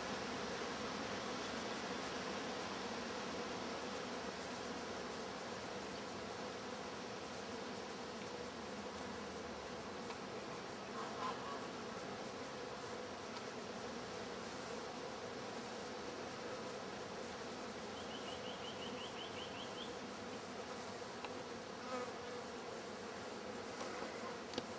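Honey bees buzzing at the entrance of their log hive: a steady, dense hum. A short run of quick high chirps comes in about three-quarters of the way through.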